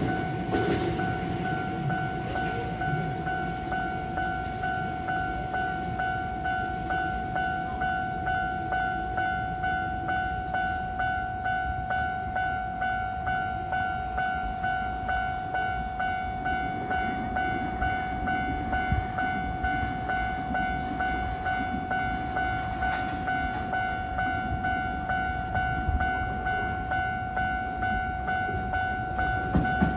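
Japanese level crossing warning bell ringing on and on, an electronic two-tone clang about one and a half times a second, while Hankyu trains rumble past on the tracks.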